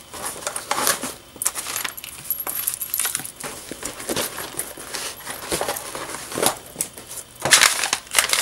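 Hands stuffing a label maker into the mesh front pocket of a fabric toiletry bag: a run of rustles, light clicks and small clinks, loudest near the end.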